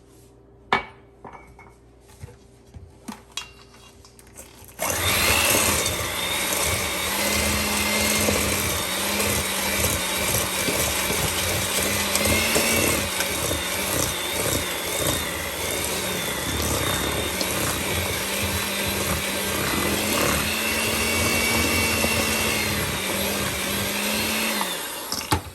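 Electric mixer creaming cream cheese and sugar in a bowl. A few light clicks and knocks come first, then the motor starts about five seconds in, runs for some twenty seconds with its pitch wavering slightly, and stops just before the end.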